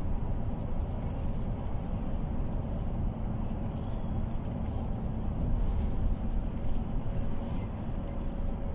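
Cabin noise of a MAN Lion's City Ü intercity bus under way: a steady low engine and road rumble with the interior rattling and clicking. A faint whine comes in near the end.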